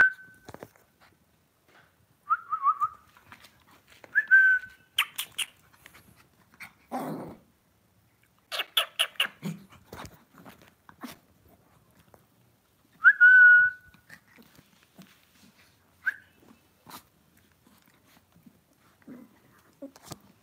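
Small Lhasa Apso dogs on a tiled floor: several short, high whistling calls, the loudest about two-thirds of the way through, a short bark about seven seconds in, and quick runs of clicks like claws on tile.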